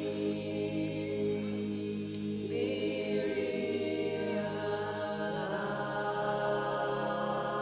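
Music of long, sustained chords in a choral or chant-like style, moving to a new chord about two and a half seconds in and again near the end.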